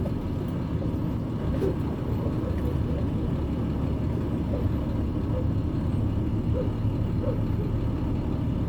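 Diesel engine of an International 10-wheeler flatbed truck running steadily in low gear, a dense low rumble as the truck crawls slowly down a rough dirt hill with its differentials locked.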